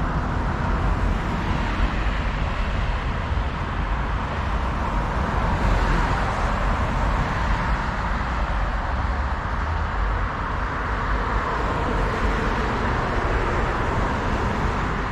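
Steady traffic noise from a busy road, with a heavy low rumble throughout.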